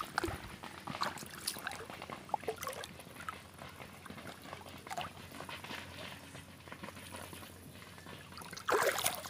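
Small splashes, drips and rustling in shallow swamp water, scattered and irregular, with a louder rush of splashing near the end.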